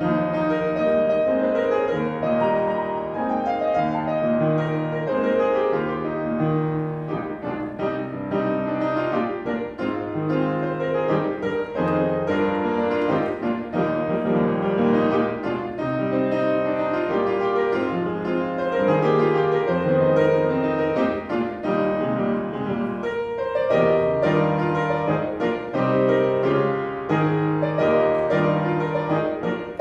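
Piano music playing continuously, with sustained notes and chords changing about every second.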